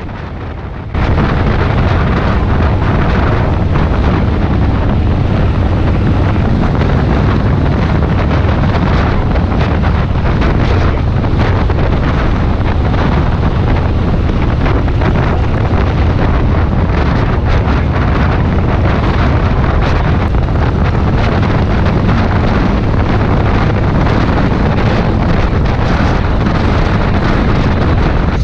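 Loud, steady wind noise on the microphone of a camera mounted on a bagger motorcycle riding at highway speed, with the motorcycle's engine and road noise underneath. It cuts in suddenly about a second in.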